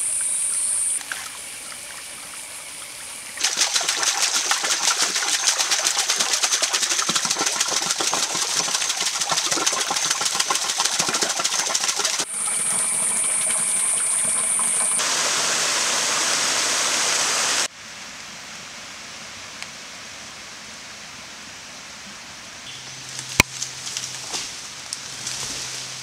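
Creek water pouring in a narrow stream off a log ledge and splashing into a rocky pool: a steady rushing splash that comes and goes across several cuts. About two-thirds of the way through it drops to quieter forest ambience, with one sharp knock near the end.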